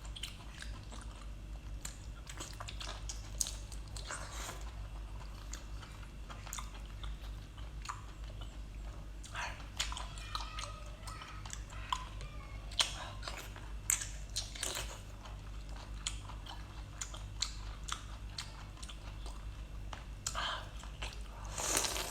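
A person biting and chewing food close to the microphone, with irregular crunching and smacking sounds over a low steady hum.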